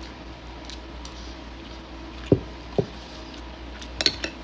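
Close-miked mouth eating sounds while eating seafood boil: two short wet smacks a little past halfway, then a quick cluster of sharper wet clicks near the end.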